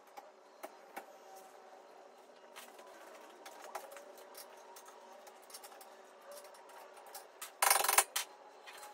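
Scattered light metal clicks and taps as a shock absorber and its bolt hardware are handled and fitted to a solid front axle's shock mount, over a faint steady hum. A short, loud burst of noise comes near the end.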